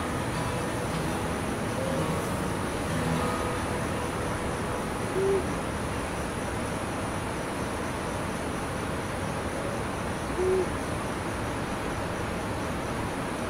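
An owl hooting: single short hoots every few seconds over a steady background hiss.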